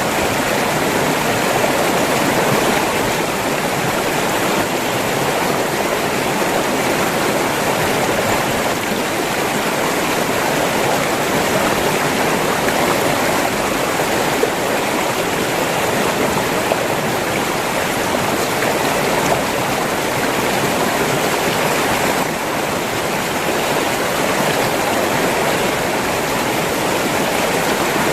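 River water flowing steadily over rocks, a continuous even rushing and splashing.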